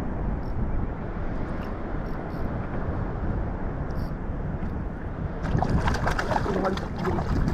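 Wind buffeting the microphone over water lapping around a kayak. About five and a half seconds in, a brighter crackling, splashy noise with many small clicks sets in.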